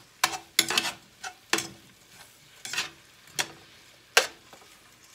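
Metal tongs clacking and scraping against a frying pan while tossing sautéing spinach: about seven sharp clatters, some with a brief metallic ring. Faint sizzling lies between the strokes.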